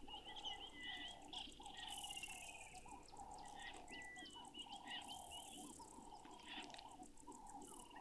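Faint waterside ambience: frogs calling over and over in a soft, steady chorus, with scattered bird chirps and a fast, high ticking over it.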